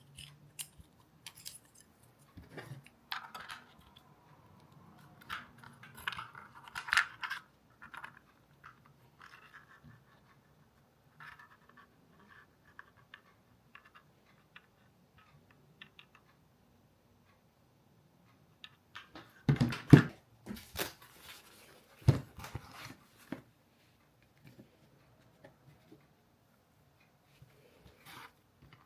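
Scattered clicks, scrapes and rattles of small gear being handled, with a few louder knocks about twenty seconds in.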